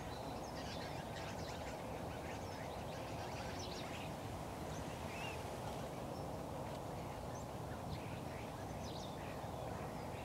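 Many short, faint calls of wild birds scattered over a steady low background noise.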